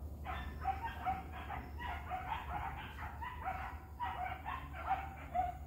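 A pack of Indonesian village dogs baying on a wild boar chase: a rapid, unbroken run of short yelping barks, about four a second, faint.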